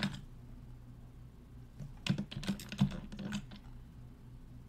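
Computer keyboard keys clicking: a quick run of keystrokes starting about two seconds in and lasting about a second and a half.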